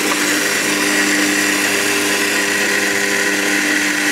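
Countertop blender motor running at a steady speed, puréeing a liquid marinade of orange juice, garlic, spices and oil.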